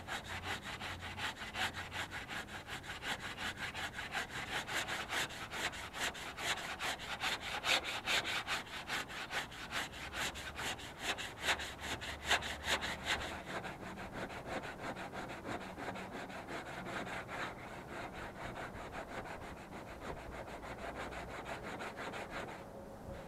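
80-grit sandpaper worked by hand in rapid back-and-forth strokes, about three a second, rubbing down hardened body filler on a car's front fender. The strokes stop just before the end.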